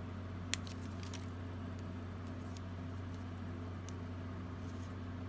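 Hands peeling glue dots off their roll and pressing cut paper pieces onto a card: one sharp tick about half a second in, then a few faint taps, over a steady low hum.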